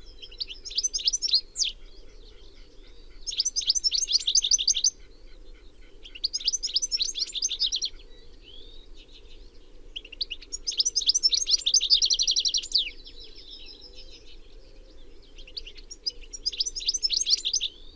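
European goldfinch singing: five bursts of rapid, high twittering trills, each one to two and a half seconds long, with short pauses between them.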